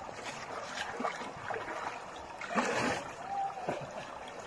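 Shallow creek water trickling and splashing over rocks. A brief louder sound comes about two and a half seconds in.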